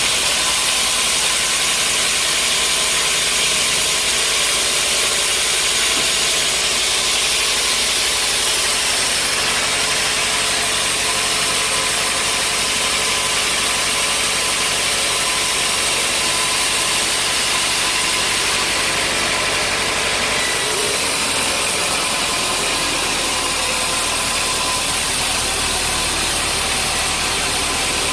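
Sawmill machinery running steadily with a constant mechanical drone and hiss, its sound shifting slightly about twenty seconds in.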